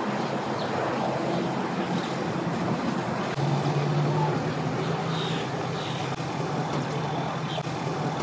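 A vehicle engine running steadily under a general outdoor noise; a low steady hum comes in about three and a half seconds in and stays.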